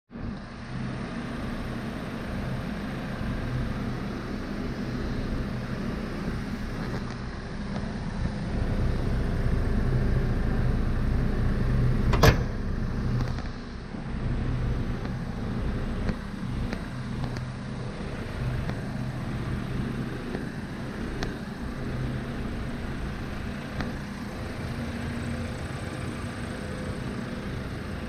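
Hyundai Porter II's 123 PS CRDi common-rail diesel engine idling steadily, with one sharp click about twelve seconds in.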